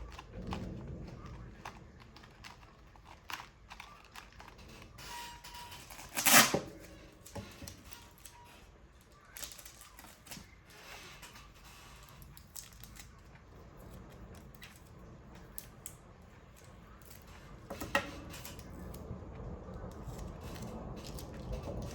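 Paper and craft tools being handled: scattered clicks, taps and paper rustling, with one loud crackle about six seconds in and another sharp tap later on.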